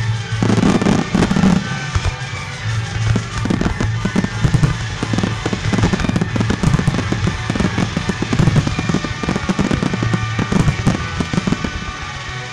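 A dense finale-style barrage of aerial fireworks: shell bursts, mines and comets going off in rapid succession, several reports a second, with crackle between them. Show music with a steady low line plays underneath.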